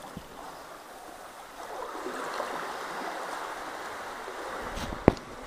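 Sea water sloshing and splashing around a kayak as it is paddled through a sea cave, growing louder about two seconds in. A single sharp knock sounds near the end.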